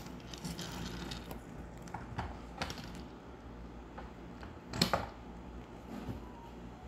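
A spoon stirring chunks of fish and vegetables in a pot: scattered clicks and scrapes of the spoon against the pot, with the loudest knock about five seconds in.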